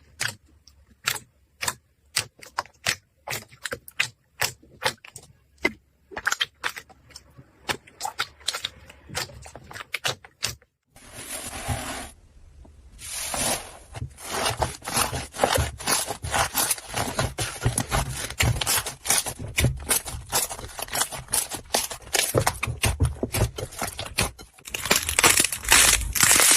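Slime being handled: sharp, sticky clicks and pops a few times a second for about the first ten seconds. After a brief break, a dense, continuous crackling follows and grows loudest near the end.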